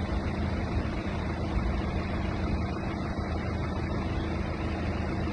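An engine running steadily, a low hum with a rushing hiss over it.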